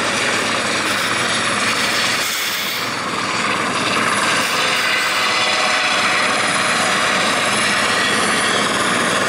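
Eurocopter EC130 helicopter flying low and close, a steady loud mix of turbine whine and rotor noise from its main rotor and Fenestron ducted tail rotor. The level dips briefly about two and a half seconds in.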